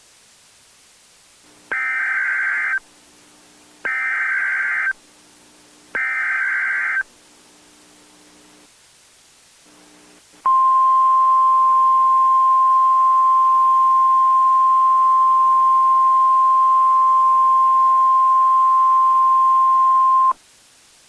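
Emergency Alert System SAME header: three one-second bursts of screeching data tones about two seconds apart. After a short pause comes the National Weather Service warning alarm, one steady high tone held for about ten seconds and cut off sharply. Together they introduce a new tornado warning.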